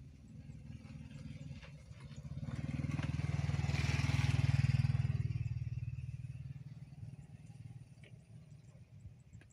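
A vehicle drives past close by: its engine and road noise grow louder over about two seconds, peak a few seconds in, then fade away. A low steady engine hum runs underneath.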